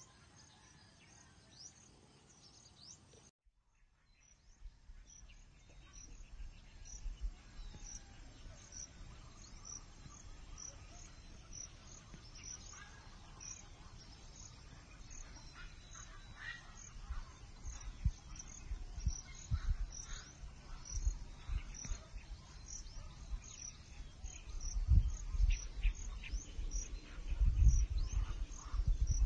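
Open wetland ambience: a high chirp repeated steadily, more than once a second, over a faint background, with wind buffeting the microphone in low rumbles that grow stronger near the end. The sound drops out briefly about three seconds in.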